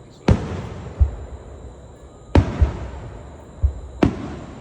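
Fireworks shells bursting overhead: three sharp bangs a second or two apart, each trailing off in a crackling echo, with two deep thuds in between.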